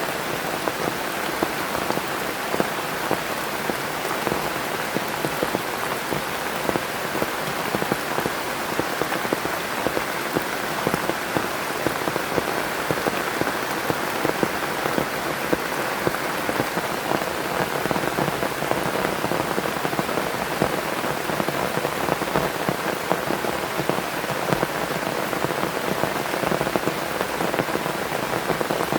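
Heavy rain falling steadily, with a dense patter of individual drops striking close by.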